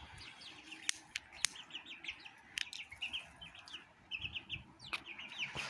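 Small birds chirping steadily in many short, quick, high notes, with a few sharp clicks in between.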